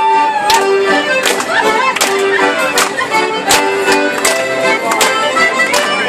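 Lively instrumental morris dance tune played live, with a sharp beat in time about every three-quarters of a second.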